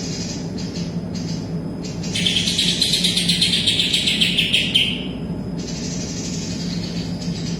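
Green leafbird (cucak ijo) singing, its song filled with kapas tembak phrases: a long, fast run of rapid high notes from about two seconds in to about five seconds, with shorter chirps before and after. A steady low hum runs underneath.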